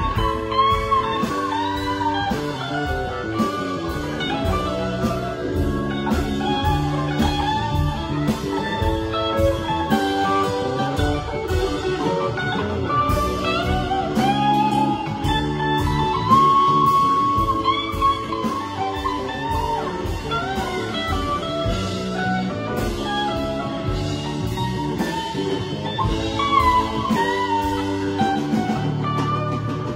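Live band playing an instrumental jam: an electric guitar lead with bending, sliding notes over electric bass, keyboards and a drum kit keeping a steady beat.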